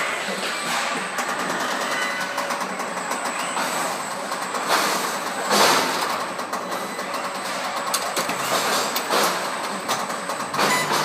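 Machinery of a robotic car-body welding cell with a C-frame spot-welding and piercing unit: steady mechanical noise, with a few short, louder bursts of hiss about five and six seconds in and again near the end.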